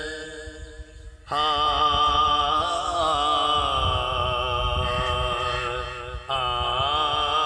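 Unaccompanied male voice singing a Punjabi naat in long, wavering, drawn-out notes, breaking off for a breath about a second in and again about six seconds in. A low rumble runs underneath.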